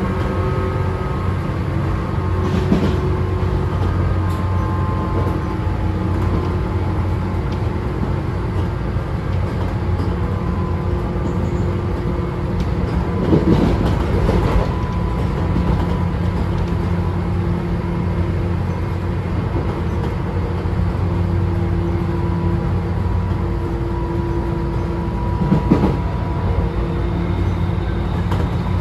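Tobu 9000 series electric train running, heard inside motor car MoHa 9204: the armature chopper control gives steady whining tones, likened to a 201 series chopper sound, over the low rumble of the wheels on the rails. A few brief thumps from the track come a few seconds in, around the middle and near the end.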